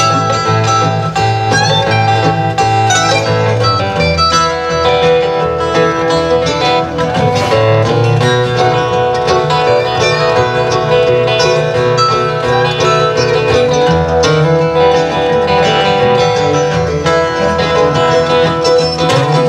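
Acoustic bluegrass band playing an instrumental break: mandolin and acoustic guitars picking together at a steady tempo, with no singing.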